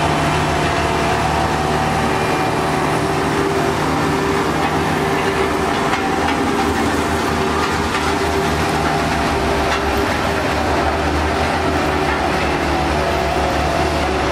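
Heavy diesel road-construction machinery running steadily close by: a continuous low engine drone with a noisy mechanical rumble over it.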